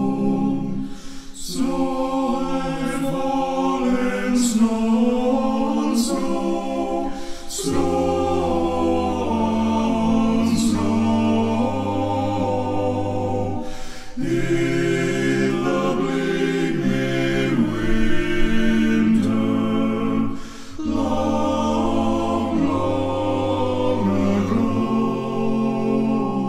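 An unaccompanied male vocal group singing a sacred song in close harmony: several voices hold chords together over a deep bass part, with the words' sharp 's' sounds standing out now and then.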